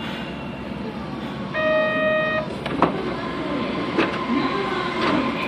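Kobe City Subway 3000 series train with Hitachi GTO inverter drive running, heard from inside the car: steady rumble of wheels and running gear. About a second and a half in, a steady pitched signal tone sounds for just under a second. Sharp clicks come about once a second after that.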